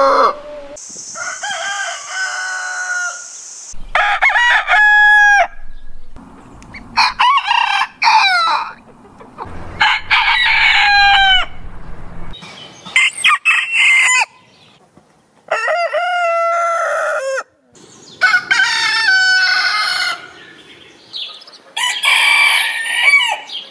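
Roosters crowing one after another, about eight full cock-a-doodle-doo crows in turn from different birds, each lasting a second or two with short pauses between.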